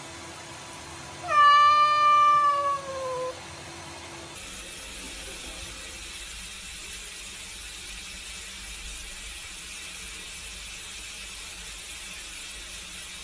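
A cat gives one long meow of about two seconds, its pitch sinking slightly toward the end. Steady background hiss follows.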